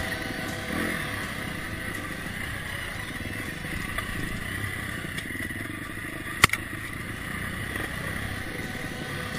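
KTM dirt bike engine running steadily, with a single sharp clack about six and a half seconds in.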